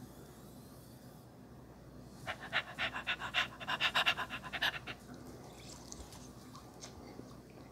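Close-miked slurping of noodles into the mouth: a quick run of sucking pulses, about nine a second, starting about two seconds in and lasting about two and a half seconds.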